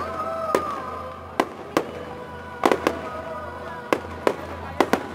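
Fireworks and firecrackers going off in quick, irregular sharp bangs, about nine in five seconds, with music playing underneath.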